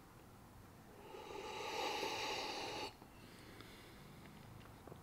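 A person's long breath out through the nose, lasting about two seconds. It starts about a second in and cuts off sharply.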